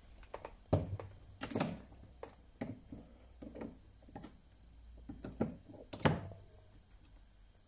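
Metal clicks and knocks from working the lead-shot ball mould and the locking pliers that clamp it with a hand tool, readying to open the mould after a pour. Irregular sharp knocks, the loudest about a second in, around a second and a half in, and about six seconds in.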